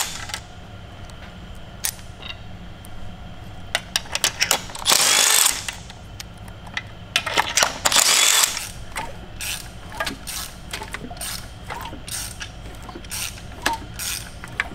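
Cordless impact driver hammering in short bursts of about a second, about five and about seven and a half seconds in, backing out the bolts of the cam-cap bridge on an Audi 4.2-litre V8 cylinder head. Between the bursts come many light clicks and clinks of loose bolts and metal parts being handled.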